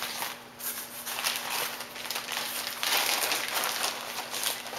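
Heavy-duty plastic zip-lock freezer bag crinkling as a cardboard frame is slid into it and handled, louder about three seconds in.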